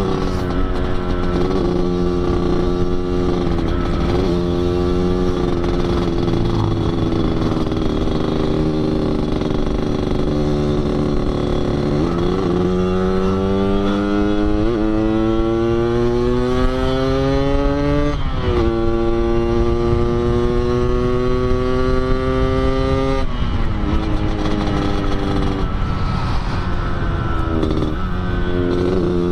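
A 2004 Yamaha RX-King's 135 cc two-stroke single being ridden through an underbelly 'kolong' exhaust set up for the Medan-style 'ngorok' note. The engine note sags slowly at first, then climbs steadily under acceleration, breaking off sharply twice at upshifts before climbing again.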